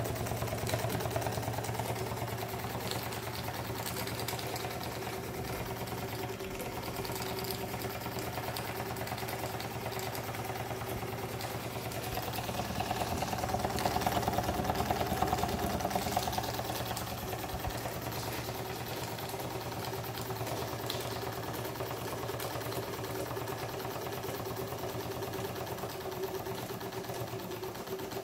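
Vintage Doll toy vertical steam engine running steadily at a fast, even beat. It swells a little louder for a few seconds midway.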